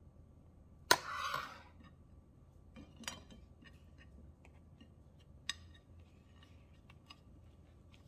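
A metal spoon clinks once against a metal colander about a second in, followed by a short scraping rustle. After that come a few faint light clicks and taps while the wrapper is folded on a ceramic plate.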